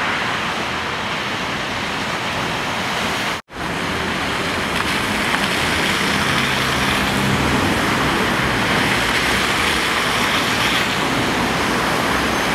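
Traffic on a flooded street: a steady rush of tyres hissing through standing water, with a low engine hum joining from about five seconds in. The sound drops out briefly about three and a half seconds in.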